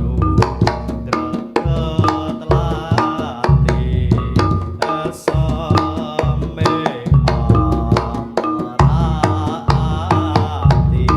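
Reog gamelan music: fast hand-drum (kendang) strokes and struck metal gong-chime hits over heavy low drum beats, with a wavering melody line above.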